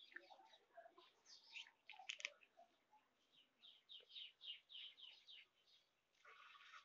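Cat licking its paw, faint rhythmic rasps of the tongue at about three strokes a second.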